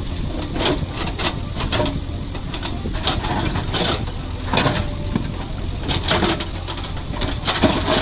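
JCB 3DX backhoe loader's diesel engine running steadily under load while the steel bucket digs and prises slabs of stone out of rocky ground. There are irregular scrapes and knocks of rock against the bucket, with a cluster of them about six to eight seconds in.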